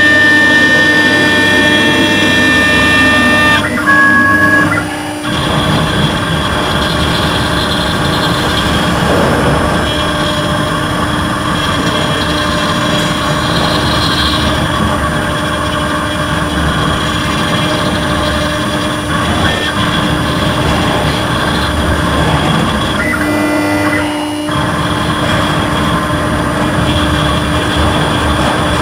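CNC shoe-mold router's spindle running while its cutter engraves a clamped metal block: a steady whine over the grating of the cut. The pitch shifts with a brief dip about four to five seconds in and again about twenty-four seconds in.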